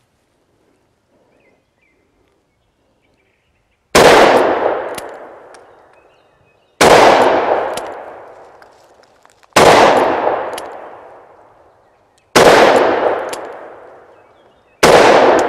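Five shots from a Taurus Judge revolver firing .410 PDX shot shells, spaced about three seconds apart, the first about four seconds in. Each shot rings out and its echo dies away over about two seconds.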